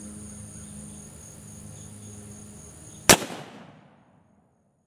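A single shot about three seconds in from an Uberti replica Colt 1847 Walker .44 cap-and-ball revolver, loaded with birdshot over 40 grains of black powder. The report rings and dies away within about a second. Before it, a steady high buzz of insects.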